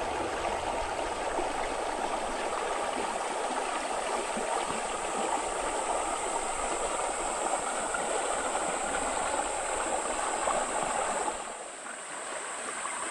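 Shallow creek rushing and rippling over rocks in a small rapid, heard from right at the water's surface; the rush drops in level near the end as the water turns to a calmer pool.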